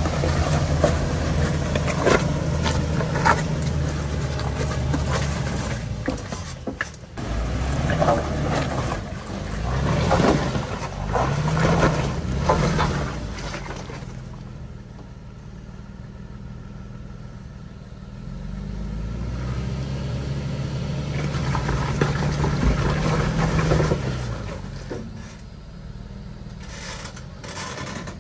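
Toyota 4Runner's engine under load while crawling over rocks, revving up and easing off in swells, with scattered knocks and scrapes over the first half. It drops quieter for a few seconds in the middle, then revs again.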